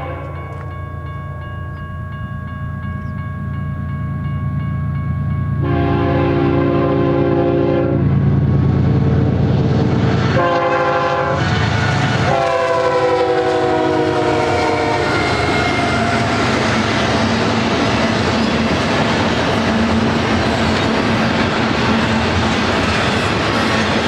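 Diesel freight train horn sounding for a level grade crossing, the BNSF GE locomotives approaching: a long faint blast, a loud long blast, a short one, then a long one that drops in pitch as the locomotives pass. It is followed by the steady rumble and clatter of double-stack and trailer cars rolling past.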